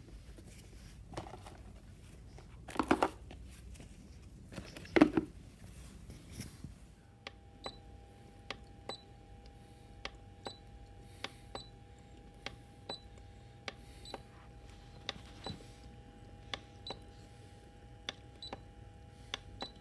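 Plastic essential oil diffuser being handled, with two louder knocks about 3 and 5 seconds in. About 7 seconds in a faint steady hum starts, with light ticks about twice a second.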